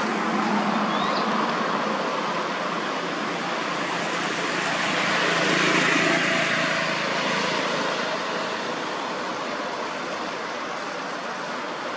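Steady background noise of road traffic, swelling as a vehicle passes about six seconds in and easing off again.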